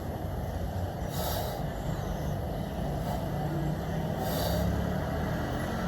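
Sharp hissing exhales, about one every three seconds, from a person working through an exercise set, over a steady low rumble.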